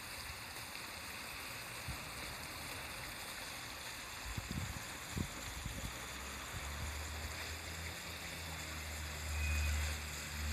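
Steady rushing outdoor hiss with a few steady high-pitched bands running through it. A low rumble comes in about six seconds in and swells near the end.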